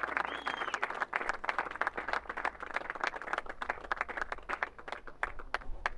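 Spectators applauding, many hands clapping quickly, thinning out near the end.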